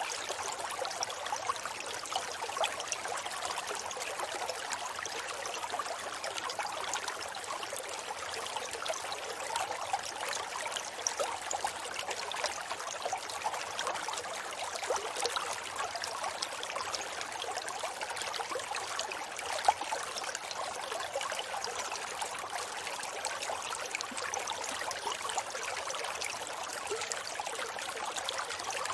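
Forest river flowing steadily, a constant rush of water with fine trickling and babbling detail. One brief sharper tick stands out about twenty seconds in.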